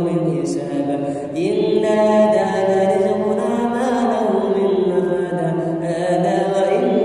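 A man's solo voice reciting the Qur'an in the melodic tilawah style, with long drawn-out notes that step and glide in pitch.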